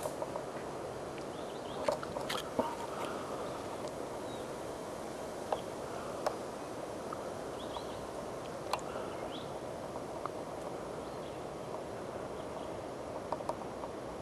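Quiet woodland background: a steady hiss with scattered small clicks and ticks, and a few faint, short high chirps.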